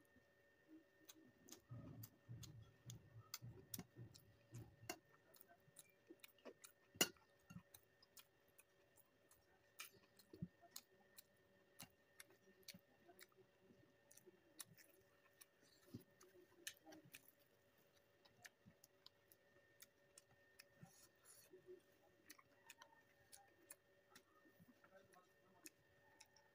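Faint eating sounds: scattered small clicks and smacks of chewing and of hand-eating from a plate, one sharper click about seven seconds in, over a faint steady hum.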